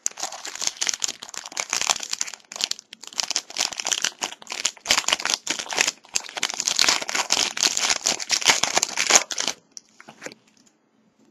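A trading card pack's wrapper crinkling and tearing as it is opened and handled, a dense crackly rustling that stops about nine and a half seconds in.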